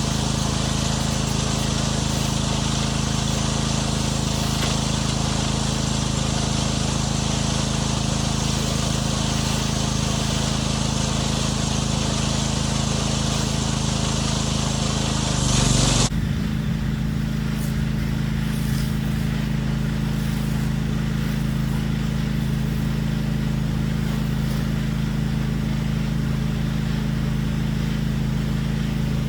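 Gas pressure washer engine running steadily under the hiss of the water jet. About halfway through, the spray hiss cuts off suddenly and the engine keeps running.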